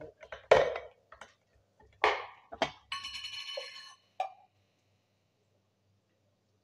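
Metal spoon clinking against a metal spice tin: several sharp clinks, one of which rings on for about a second near the middle.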